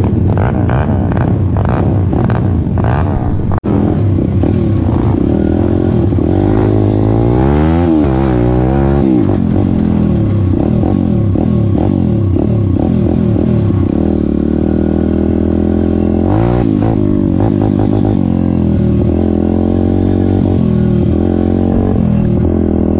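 Pit bike's small single-cylinder four-stroke engine running under load while being ridden, heard close up from the rider's helmet. Its pitch rises and falls with the throttle, with clear revving swings about a third of the way in and again past halfway.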